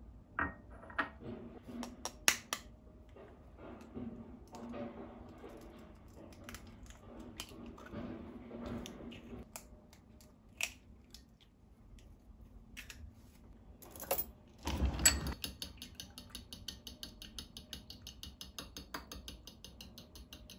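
Kitchen utensils and dishes being handled, with scattered light clicks and clinks. About 15 s in there is a clatter, and food starts sizzling in a hot pan with a rapid, even crackle.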